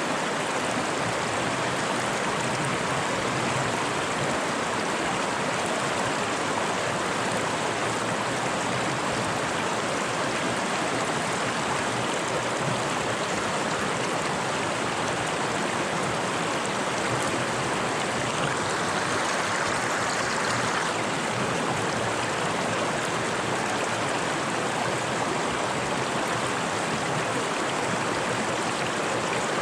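Fast-flowing mountain river rushing over rocks, a steady, even rush of water.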